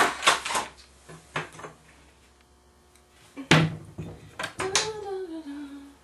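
Kitchen clatter: several clicks and knocks of things being handled, with one loud knock about three and a half seconds in. A short voice sound, falling in pitch, follows near the end.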